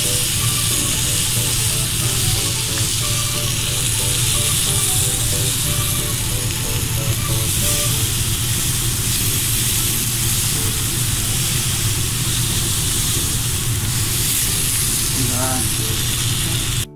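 Vinegar sizzling and steaming on a cast-iron ring burner still hot from burning off its oil: a steady, loud hiss that stops suddenly at the very end.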